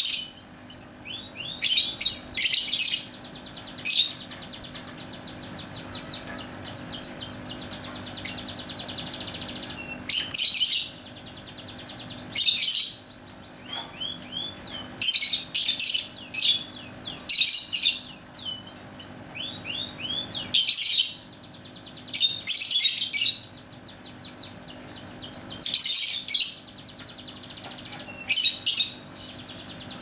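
Caged Fischer's lovebirds chattering: fast trills of high, repeated chirps, broken every two seconds or so by loud, shrill shrieks.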